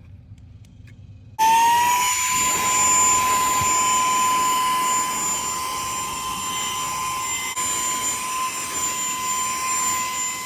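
Saker 3-in-1 handheld cordless vacuum switched on about a second in: its small motor spins up quickly and runs with a steady high whine over rushing air.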